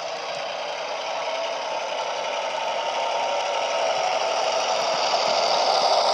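Diesel engine sound from a DCC sound decoder in a model Irish A Class locomotive, played through a small tablet speaker, running steadily as the model moves. It grows gradually louder as the locomotive draws near.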